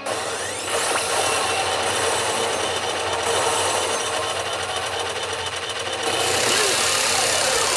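P北斗の拳9闘神 pachinko machine's effects and gimmick noise: a dense, steady rattling buzz that starts under a second in, with faint gliding tones over it.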